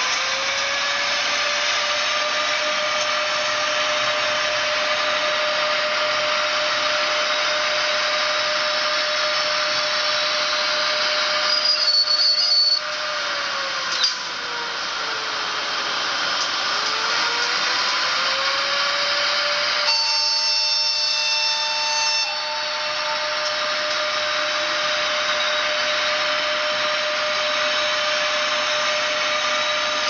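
ESU LokSound 4.0 sound decoder in a Fleischmann BR103 model electric locomotive, playing the locomotive's running sound through its small speaker. A whine rises in pitch as the locomotive speeds up and holds steady over a constant hiss. Around the middle it falls away, with a click, then rises again. Short high steady signal tones come in about twelve seconds in and again around twenty seconds.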